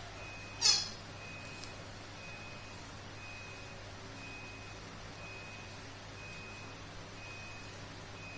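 A short high electronic beep repeating about once a second, over a low steady hum. About two-thirds of a second in comes a brief, loud burst of hissing noise.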